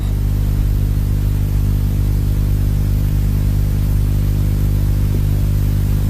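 A steady low humming drone that holds one pitch and level, with a faint hiss above it.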